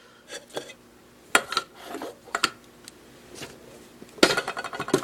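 Handling of a metal watch tin and its packaging: a scatter of light knocks and clicks, then, about four seconds in, a sharp clank that rings on and slowly fades.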